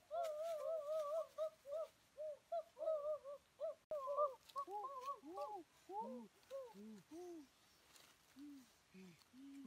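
A run of short bird-like hooting calls, each note rising and falling in pitch, quick and high at first. After a sharp click about four seconds in, the calls turn slower and step lower in pitch.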